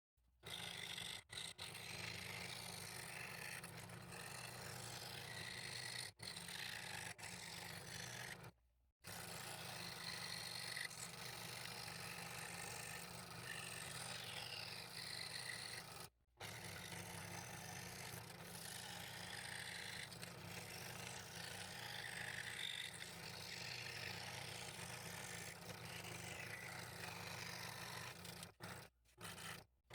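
Scroll saw running and cutting wood with a number 3 blade: a steady motor hum under the rasp of the blade through the board. The sound drops out briefly several times.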